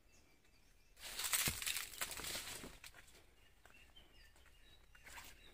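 A brief rustling, crackling noise about a second in, lasting under two seconds, over a quiet outdoor background with a few faint bird chirps.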